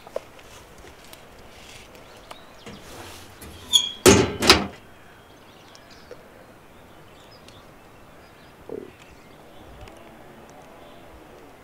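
Sheet-metal smokehouse door being worked: a short squeak, then two loud scraping clatters about four seconds in, and a lighter knock near nine seconds.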